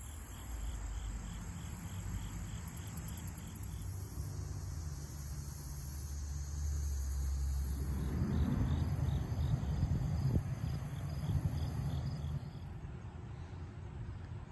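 Crickets and other insects trilling steadily, with a regular chirp about twice a second that stops about halfway through. A low rumble sits underneath and grows louder in the middle.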